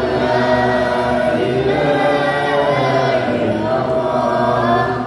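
Voices chanting a closing prayer together in unison, in long, drawn-out melodic phrases.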